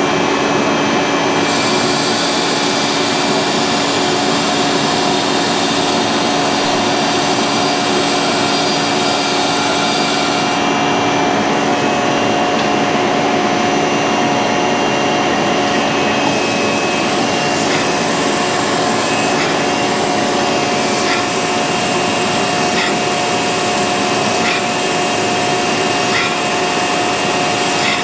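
Cam grinding machine running steadily with coolant flowing. From about two seconds in to about ten, an added high hiss comes in as the grinding wheel is dressed. From about sixteen seconds in, a pulse repeats about every one and a half seconds as the wheel grinds the lobe of the turning camshaft.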